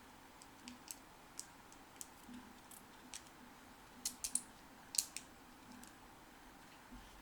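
Scattered light clicks and taps from handling small hard objects, about a dozen at uneven intervals, with the loudest cluster about four to five seconds in.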